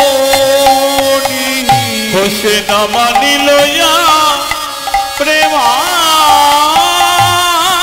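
Bengali devotional kirtan music played by the ensemble without sung words: a melody with sliding, wavering ornaments over a lower held note, with steady hand-drum strokes.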